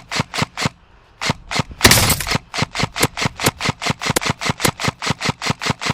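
Airsoft gun firing a long string of rapid single shots, about five or six sharp cracks a second, with a brief pause about a second in. A louder rushing noise breaks in around two seconds in.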